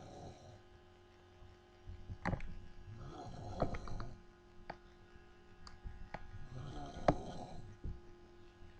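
A sleeping person snoring, about one snore every three to four seconds, with short sharp clicks mixed in among the snores.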